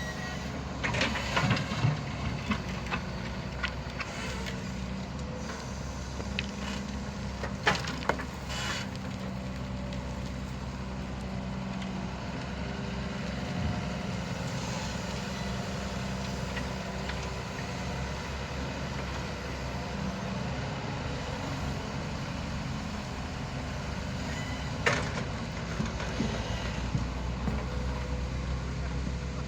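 Excavator engine running steadily, with a few sharp metallic knocks in the first two seconds, about eight seconds in, and again about twenty-five seconds in.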